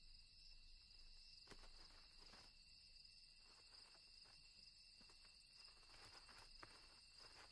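Faint crickets trilling steadily in the night, with a few soft ticks.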